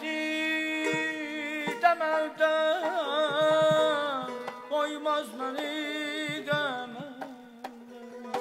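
Azerbaijani mugham singing by a high male voice: long held notes broken by fast trilled ornaments (tahrir), over a sustained accompanying instrument, with a few light strokes on a gaval frame drum.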